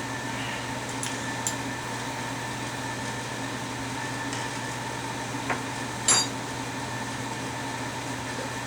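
Steady room hum from an appliance or fan, with a few small clicks and one sharper tick about six seconds in.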